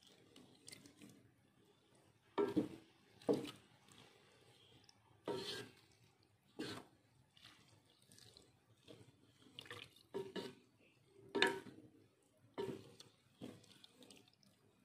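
Spatula stirring shredded meat in broth in a pot: liquid sloshing, with irregular knocks and scrapes of the spatula against the pot every second or so.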